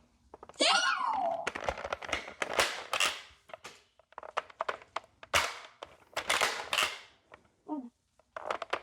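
Irregular sharp clicks, knocks and crinkling from a toy Nerf blaster being worked and fired at foil card packs on a wall, with a brief falling squeal about half a second in.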